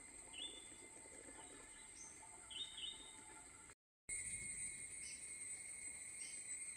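Faint outdoor ambience of insects droning steadily at a high pitch, with a few short bird chirps in the first few seconds. The sound cuts out for a moment about four seconds in and returns with the insect drone louder.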